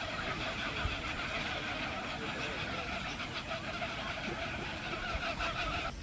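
Dense chorus of many birds calling over one another at a treetop nesting colony, a continuous chatter.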